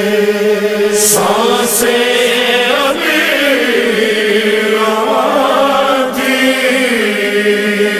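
Nauha (Shia lament) sung by a male voice in long, wordless, melismatic lines over a steady held vocal drone.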